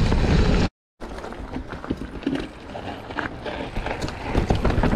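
Mountain bike running down a dry dirt and rock trail: heavy wind and tyre rumble on the microphone, broken off suddenly by a gap of silence under a second in. After it, quieter tyre crunch over loose dirt and stones with many sharp clicks and rattles from the bike.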